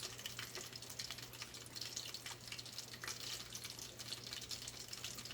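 Hot oil in a deep fryer sizzling with a steady fine crackle of small irregular pops, over a steady low hum.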